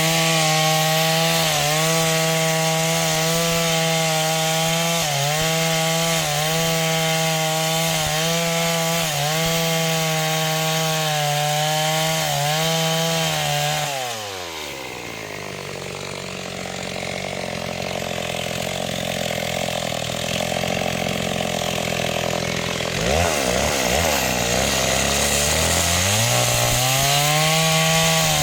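Chainsaw engine running at full throttle while cutting wood, its pitch dipping briefly about once a second as the chain bites. About halfway through it drops to idle, a few revs blip after a while, and near the end it climbs back to full throttle.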